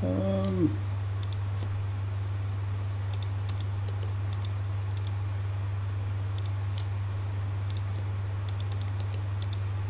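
Scattered computer mouse and keyboard clicks, single and in quick clusters, during CAD drafting work, over a steady low electrical hum.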